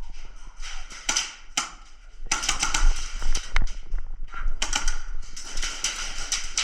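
Airsoft guns firing in rapid bursts of sharp clicking shots: a couple of short bursts, then two long strings about two seconds in and again past the middle.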